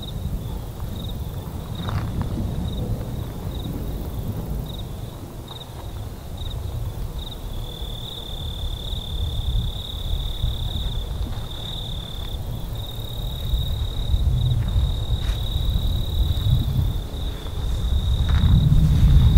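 Crickets chirping in one high, steady trill. It pulses at first and runs unbroken from about a third of the way in. A louder low rumble lies beneath it and swells near the end.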